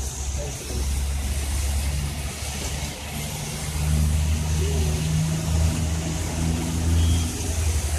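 Traffic in the rain: a low engine drone of vehicles, louder from about three seconds in, over a steady hiss of rain and tyres on wet road.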